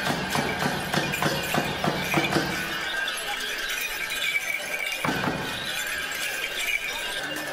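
Tibetan opera (Ache Lhamo) accompaniment of clashing hand cymbals and drum: a run of strokes over the first three seconds and another strike about five seconds in, with the cymbals ringing on in between.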